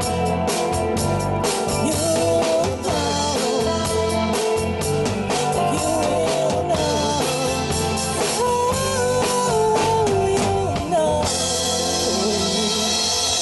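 Live rock band playing: a gliding lead melody over bass and a steady drum-kit beat, with a bright cymbal wash coming in near the end.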